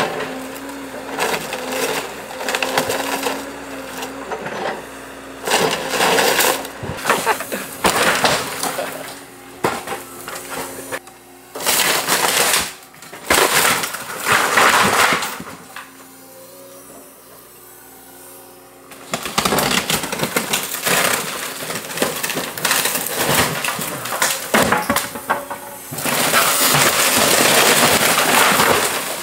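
Wooden building being smashed by an excavator bucket: repeated crashes of cracking, splintering boards and collapsing timber, with a quieter lull about two-thirds of the way through.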